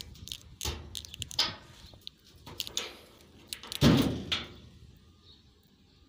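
A string of knocks and clicks from things being handled, with the loudest, heavier thud a little before four seconds in.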